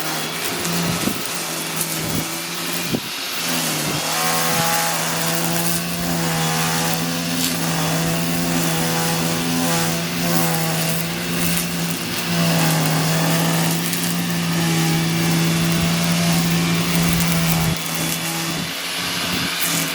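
String trimmer motor running steadily at speed with a humming whine whose pitch wavers slightly as the line cuts grass.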